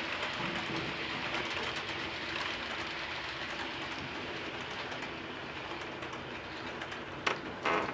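HO-scale model passenger train rolling along the layout's track: a steady rumble of wheels on rail with a faint steady hum, then two sharp clicks near the end.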